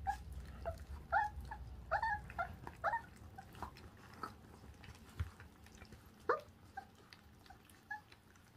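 Puppies feeding together on raw meat on the bone, giving a dozen or so short, high whines and squeaks as they tug and chew, with soft clicks of teeth and chewing between them.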